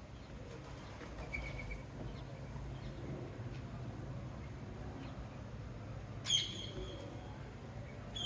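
Small birds chirping: a faint short chirp about a second and a half in, then a loud, sharp chirp about six seconds in and another at the very end, over a low, steady background rumble.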